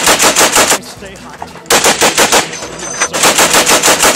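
Mounted heavy machine gun fired in short automatic bursts at about eight to nine shots a second. One burst ends under a second in, a second short burst comes at about two seconds, and a third starts about three seconds in.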